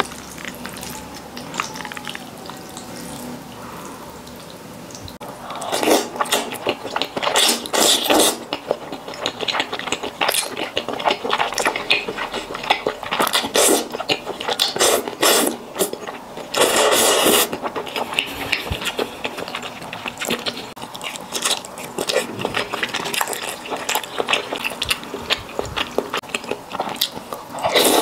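Close-miked eating of sesame-sauce malatang noodles: quiet stirring with chopsticks at first, then from about five seconds in loud wet slurping and chewing of the sauce-coated noodles, with a few long slurps.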